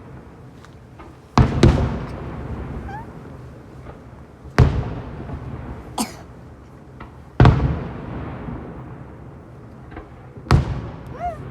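Fireworks shells bursting: a double bang, then single bangs about every three seconds, each followed by a rolling rumble as it echoes away. A brief crackle comes between them about halfway through.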